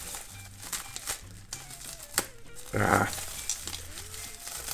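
Plastic cling film crinkling as it is pulled and torn off a bundle of wrapped parts, in scattered faint rustles, with a sharp click about two seconds in and a short louder rustle about a second later.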